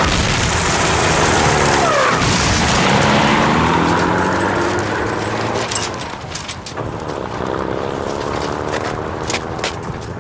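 Staged battle sound effects: dense explosion and blast noise for about the first half, then scattered sharp gunshots. A motor vehicle's engine revs up, rising in pitch, twice.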